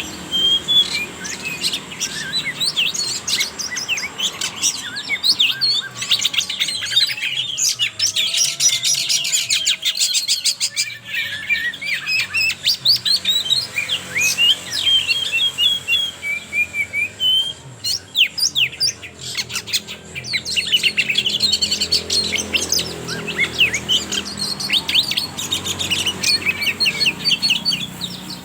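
Juvenile oriental magpie-robin (kacer trotol) singing a rapid, varied song of chirps, whistles and trills, with only brief pauses.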